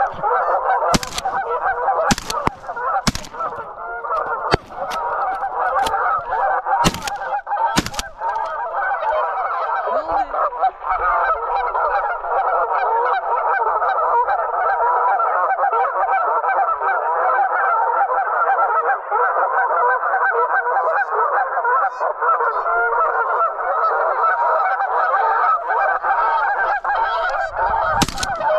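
A large flock of geese honking continuously, many calls overlapping. Five sharp knocks or clicks cut through in the first eight seconds, and one more comes near the end.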